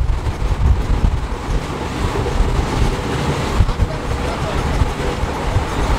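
Passenger train running along the track, heard from inside the coach: a steady, loud rumble of wheels and carriage.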